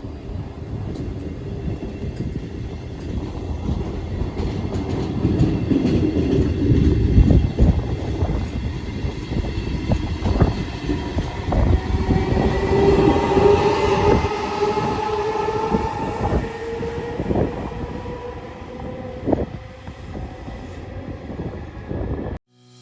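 Train passing close by: a rumble that builds, with wheels knocking over the rail joints and a whine that rises in pitch midway through the pass. The sound cuts off suddenly near the end.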